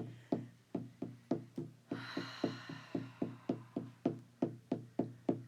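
Shamanic frame drum beaten in a steady, even pulse of about three strokes a second, each stroke ringing low, with a soft hiss for about a second in the middle.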